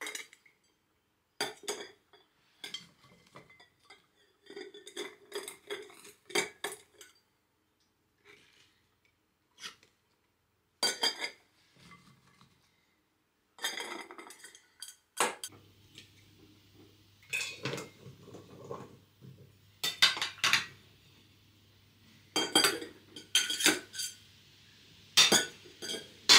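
Utensils and glass canning jars clinking in irregular taps and knocks as the jars are filled with beans. A faint steady low hum comes in about halfway through.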